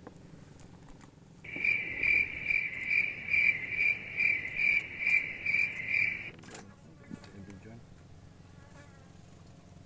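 Rhythmic cricket-like insect chirping: a steady high-pitched chirp repeated about two and a half times a second. It starts abruptly about a second and a half in and stops just as abruptly about five seconds later.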